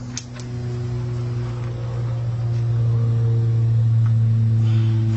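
A machine motor humming steadily at a low pitch, growing louder over the first few seconds and then holding, with two light clicks just after the start.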